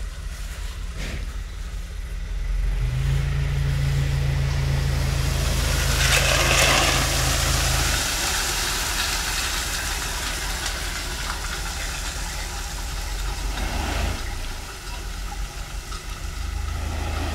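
Dump truck's diesel engine running to power the tipping hydraulics, pulling harder from about three seconds in until about eight seconds, then settling back. Meanwhile the load of crushed-stone gravel slides out of the raised bed with a gritty, rattling hiss that is loudest around the middle.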